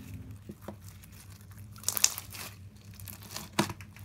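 Semi-floam, a pink slime packed with foam beads, giving a soft crunch as hands squeeze, stretch and poke it. Irregular small crackles run throughout, with louder ones about two seconds in and again near the end.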